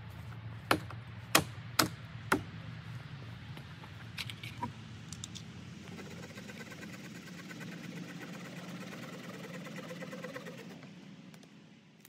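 Four sharp knocks about half a second apart, followed a couple of seconds later by a few fainter clicks, over a low steady hum.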